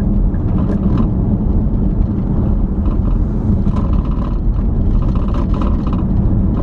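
Steady road and engine noise inside a moving car's cabin: a low, even rumble of tyres and engine while driving.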